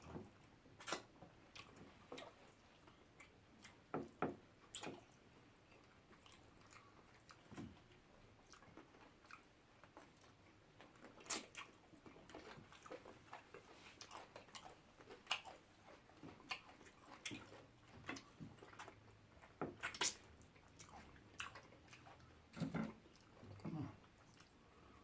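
People eating fufu with soup by hand: scattered soft chewing, lip smacks and small wet mouth clicks, with short gaps between them.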